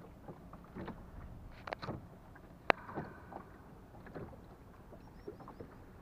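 Small boat rocking on a choppy river, water slapping the hull with scattered light knocks, and one sharp click about two and a half seconds in.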